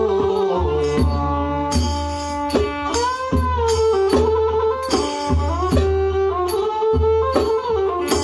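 A mahori kantrum ensemble playing Khmer-Surin folk music: a bowed fiddle carries a bending, sliding melody over a steady beat from the barrel drums, with sharp percussion strokes.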